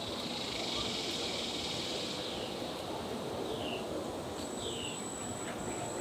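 Outdoor ambience: a steady insect drone with a few short, falling bird chirps, and a thin high steady note that joins about four and a half seconds in.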